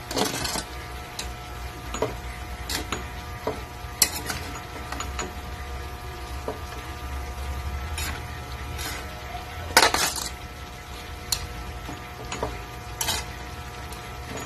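Metal spatula scraping and knocking against a metal wok as pork pieces in sauce are stirred, in irregular strokes with the loudest just under ten seconds in, over a steady low hum.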